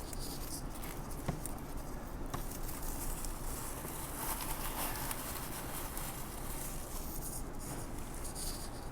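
Eating at a table: a few light clicks of chopsticks and tableware over a steady low hum.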